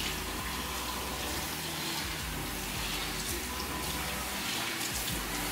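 Water running steadily from a salon backwash basin's handheld shower sprayer as hair is rinsed.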